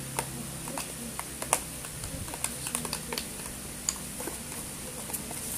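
Homemade slime being squeezed and kneaded by hand in a plastic tub, giving irregular small clicks and sticky pops.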